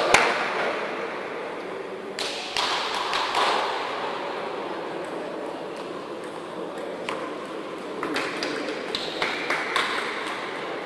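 Table tennis ball clicking off the paddles and the table: a few single taps in the first seconds, then a quick rally of sharp ticks in the last four seconds, over the steady hum of a large hall.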